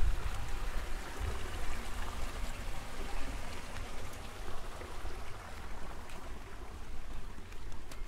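Outdoor ambience of wind rumbling on the microphone over a steady rush of running water, irrigation water flowing through flooded rice paddies. The rumble is strongest at the start and eases within the first second.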